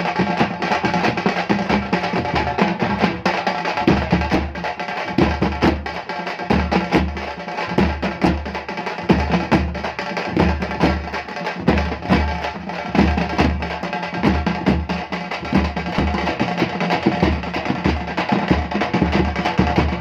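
Chennai kutthu drums playing a fast, dense beat of sharp strokes, with a deep bass thump joining about four seconds in and going about twice a second.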